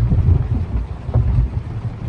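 Thunder rolling in a low, uneven rumble during a rainstorm.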